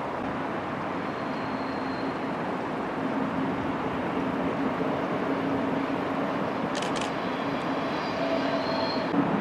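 Electric train running on the line, a steady rumble with a low hum, getting louder toward the end. A faint high whine comes and goes, and two sharp clicks come about seven seconds in.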